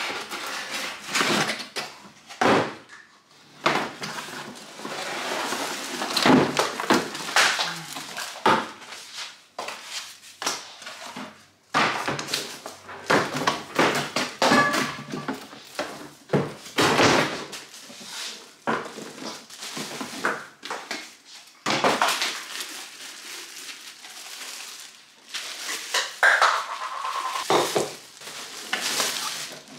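Cardboard box and plastic wrapping handled while a filter coffee maker is unpacked: irregular rustling and crinkling with scattered knocks as the parts are lifted out and set down.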